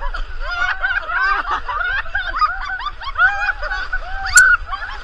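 A group of people laughing together, many voices overlapping, with a sharp knock about four seconds in.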